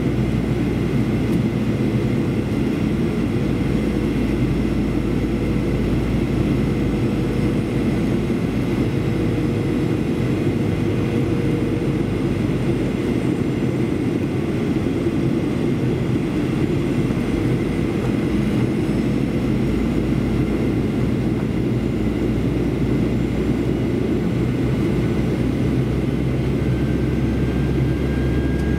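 Steady cabin noise of a Boeing 737-800 climbing after takeoff: its CFM56-7B turbofan engines running as a low, even rumble, with faint steady whines above it and a faint rising whine near the end.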